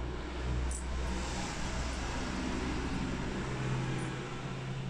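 Steady low mechanical rumble with a hum, from running machinery or traffic, with a faint small metallic click under a second in.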